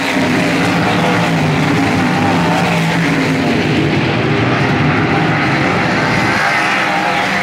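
A field of 360 sprint cars racing around a dirt oval, their V8 engines at full throttle. Many engines overlap in one loud, steady drone, with pitches rising and falling as cars come past and run down the straights.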